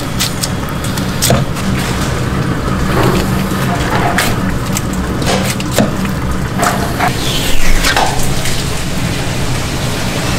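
Kitchen noise while a large yellowtail is filleted: a steady low hum and running water, with scattered sharp clicks and knocks from the knife and board.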